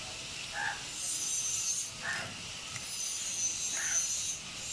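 Fish being cut and scraped against a large upright cutting blade, with two long rasping strokes about one second and three seconds in.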